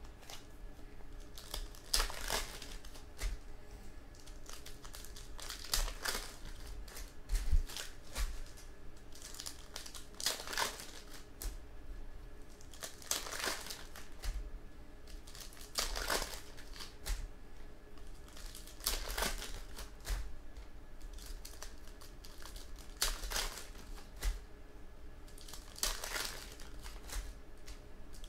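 Foil-lined trading-card pack wrappers being torn open and crinkled by hand, in short crackling bursts every couple of seconds.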